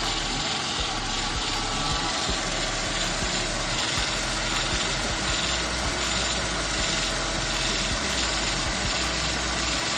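2001 Ford Mustang engine idling steadily, a constant, even running noise with no change in speed.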